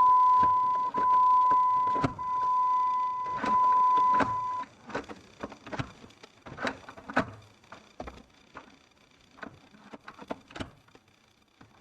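A steady electronic beep tone sounds for the first four and a half seconds, then cuts off, over a string of clicks and clunks from the Jeep's transfer case shift lever and linkage being worked.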